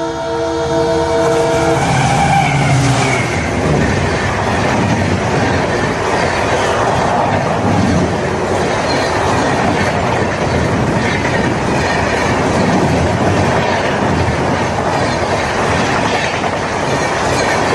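WDP-4D diesel locomotive sounding its horn as it closes in, the horn cutting off about two seconds in as the engine's rumble passes. The express's coaches follow at high speed, a loud continuous rush of wheels clattering on the rails.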